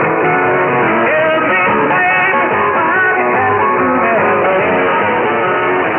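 Guitar-driven rock music from a pirate shortwave station, received in AM on 6925 kHz, with thin, narrow-band radio audio and nothing above about 4 kHz.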